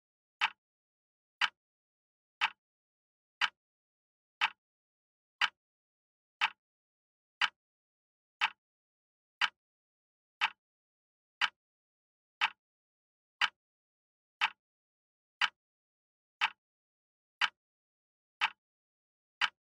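Countdown timer tick sound effect: one short, sharp tick every second, about twenty in all, with silence between.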